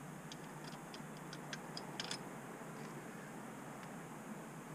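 Faint, light metallic clicks and ticks, scattered and mostly in the first couple of seconds, as the clutch springs and spring bolts of a Royal Enfield Himalayan's clutch are worked out by hand.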